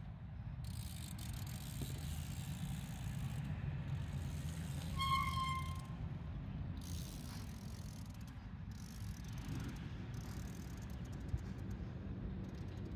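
Trials bicycle being ridden and balanced on asphalt over a steady low rumble. About five seconds in comes one short, high squeal, and near the end a single sharp click.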